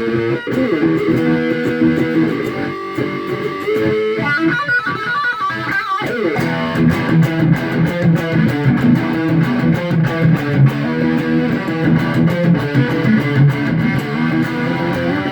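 Epiphone SG electric guitar with humbucker pickups played through a distorted Marshall JCM 2000 DSL tube head. It plays chords and riffs, with a short slide about six seconds in, then rhythmic picked chugging.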